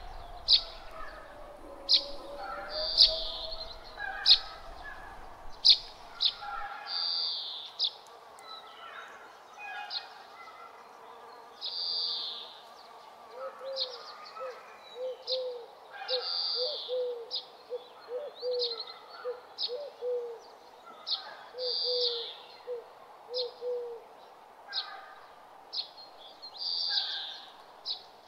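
Outdoor birdsong: several birds chirping with short, high calls. A run of quick, low repeated calls comes in the middle. A low rumble under them stops about six seconds in.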